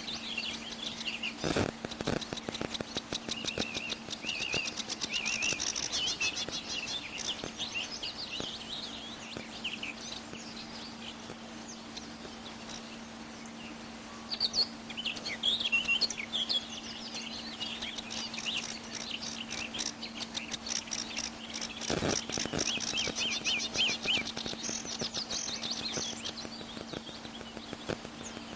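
Small birds chirping and trilling, in two long stretches of rapid calls, over a steady low hum, with two sharp clicks, one about a second and a half in and one near the end.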